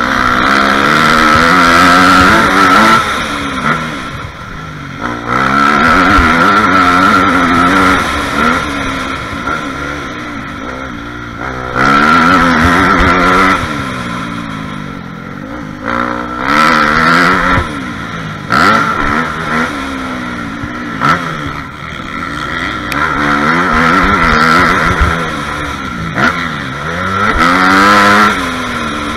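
Dirt bike engine heard close from the rider's helmet, revving up and dropping back again and again as the throttle is opened and closed, the pitch climbing in each pull and falling between them.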